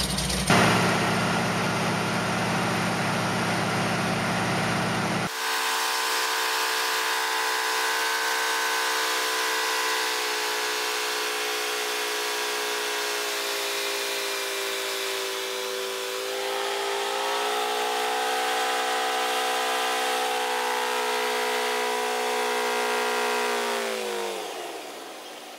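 A single-engine float plane's engine and propeller, heard inside the cabin: a deep rumble that jumps louder just after the start as power comes up on the water, then, after an abrupt change about five seconds in, a steady engine drone in flight. Near the end the engine note sinks and fades as power is cut for touchdown on the water.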